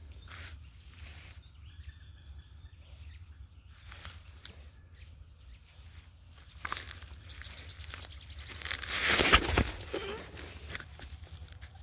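Scattered rustling and crackling in dry forest vegetation, with a louder rush of noise building and fading about nine seconds in.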